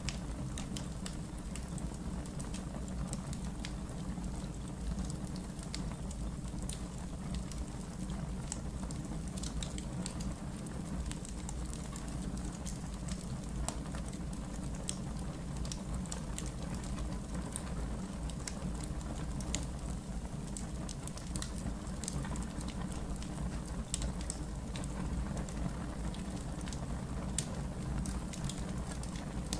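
Wood fire burning in a fireplace: a low steady rumble of the flames with frequent small, irregular crackles and pops from the logs, a slightly louder pop about 22 seconds in.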